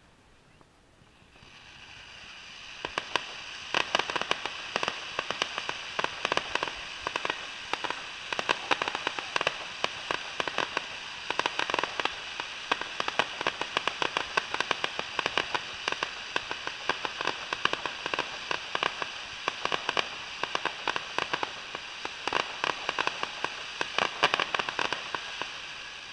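Fireworks finale: a continuous dense crackle of many sharp pops over a steady hiss. It swells in about two seconds in and starts to fade near the end.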